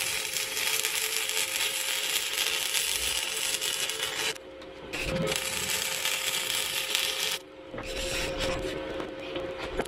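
Electric arc welding on thick steel: the arc's steady crackling hiss runs until a little past four seconds, stops for about half a second, starts again and stops around seven seconds, followed by fainter, scattered crackles.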